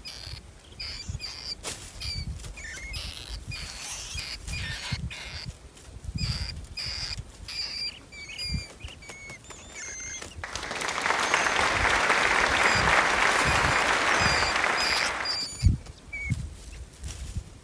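Wire-mesh rat cages clicking and rattling as they are handled, with short high chirps or squeaks scattered throughout. About ten seconds in comes some five seconds of loud rustling noise.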